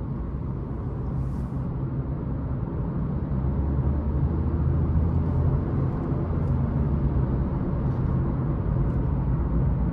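Steady road and engine noise heard inside the cabin of a Toyota car cruising on a highway at about 80 km/h, a low rumble that grows slightly louder over the first few seconds as the car speeds up.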